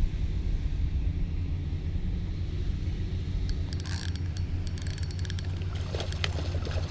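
Steady low rumble, likely wind buffeting the microphone, with a run of sharp clicks and light rattles starting about halfway through as the fish and tackle are handled after landing.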